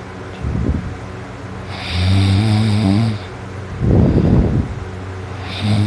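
A sleeping person snoring hard, in a steady rhythm of short rough snorts alternating with longer droning snores, about one every two seconds.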